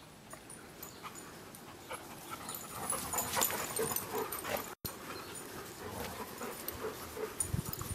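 Dogs panting close by, fairly faint. The sound drops out for an instant a little under five seconds in.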